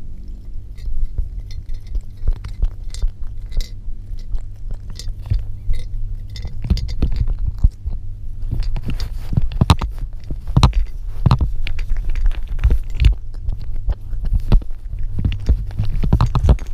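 A Munchkin cat crunching dry cat food right at the microphone: a dense, irregular run of crunches and clicks, with its face bumping and rubbing against the camera.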